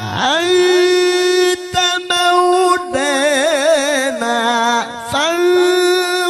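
A solo male voice chanting an Arabic devotional melody with no accompaniment, in Islamic recitation style. He holds long high notes and sings a passage of rapid wavering ornaments in the middle, with short breaths between phrases.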